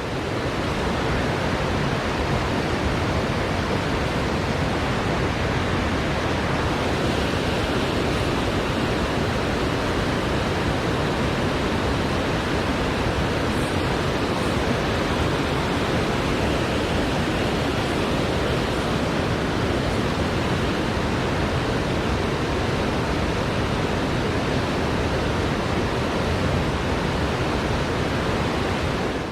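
Steady rushing of water tumbling down a small stream's waterfall, an even noise with no change in level.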